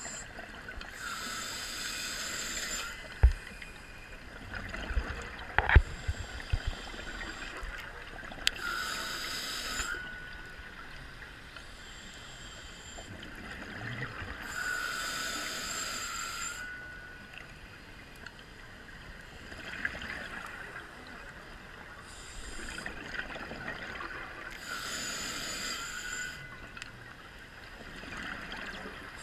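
Scuba diver breathing underwater through a regulator: a hissing inhale with a faint whistle, repeating about every six to seven seconds, with bubbling exhales between them. A few sharp knocks sound around three and six seconds in.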